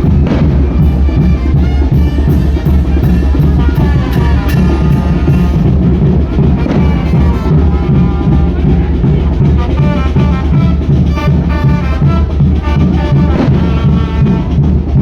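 Mexican banda-style brass band playing a lively tune, with horns over a steady bass line and a thumping bass drum beat.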